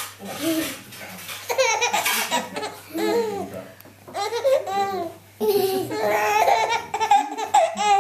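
A baby laughing in repeated bouts, with short breaks between them.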